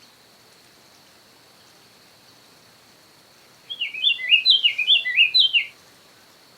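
Diademed tanager (sanhaçu-frade) singing one short, quick phrase of chirpy notes that step up and down, lasting about two seconds and starting just past halfway. A faint steady high-pitched whine runs underneath.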